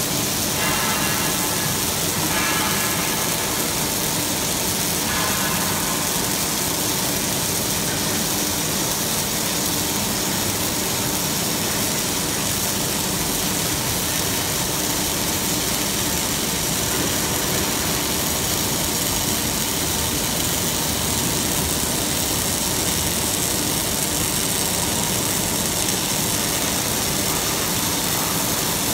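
Robotic arc welding of steel parts: welding robot torches burning a continuous arc, heard as a steady, dense hiss that does not let up.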